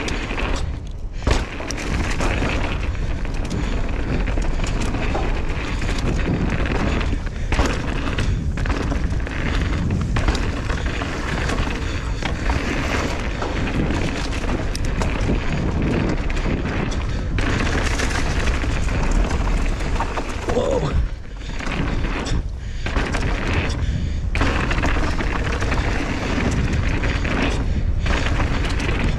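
Wind buffeting the camera microphone as a mountain bike runs down a dirt downhill trail, with tyre noise and knocks and rattles from the bike over bumps. The noise drops out briefly a few times.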